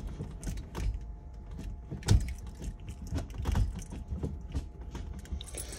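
Gear lever and new shift cables of a Daewoo Matiz being worked through the gears: a run of irregular clicks and knocks, the loudest about two seconds in, over a faint steady hum.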